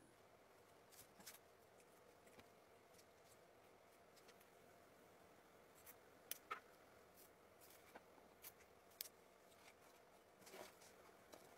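Near silence: faint room tone with a few scattered light clicks and taps.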